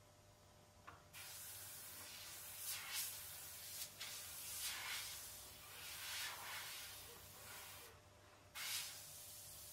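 Airbrush spraying paint: a hiss of air that starts about a second in, swells and eases in short passes as the trigger is worked, stops briefly near the end and starts again.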